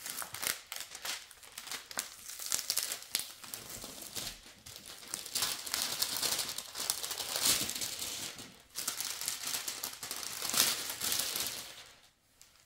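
Thin clear plastic protective film on a diamond painting canvas crinkling and rustling as hands smooth it flat and lift its edge, with louder crackly stretches in the middle and a drop near the end.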